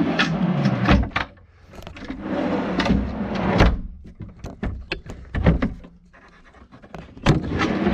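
Heavy-duty full-extension drawer slides running as a plywood drawer and platform are pulled out and pushed along by hand, in several sliding strokes about a second long, with sharp clicks and knocks between them from the slides and latches catching.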